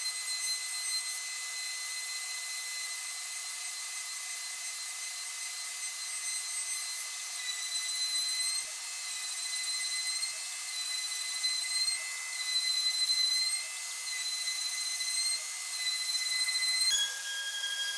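Homemade CNC router drilling holes into a sacrificial plate with a 6 mm cutter: the spindle runs with a steady high whistle and overtones, along with the dust vacuum, swelling in level now and then and dropping slightly in pitch about a second before the end.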